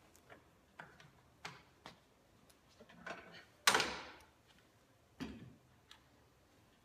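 Metal clamps being handled and tightened on a wooden bending jig as a steam-bent red oak strip is clamped around it: scattered clicks and knocks. One loud knock a little past halfway rings on briefly, and another comes about a second and a half later.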